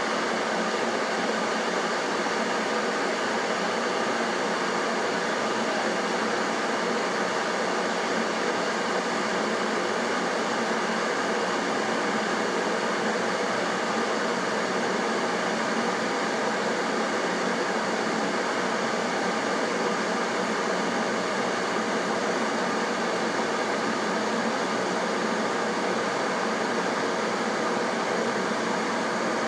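Blaupunkt EKG501BK glass electric kettle heating water, a steady rushing hiss that holds even throughout.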